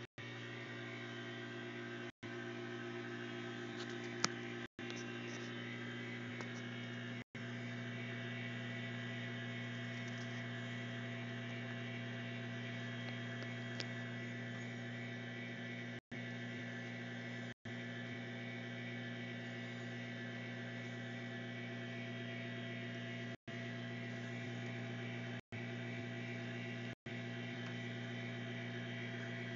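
Steady electrical hum with many overtones from the powered-up cutaway car teaching model, unchanging throughout, with a single sharp click about four seconds in. The sound cuts out briefly about nine times.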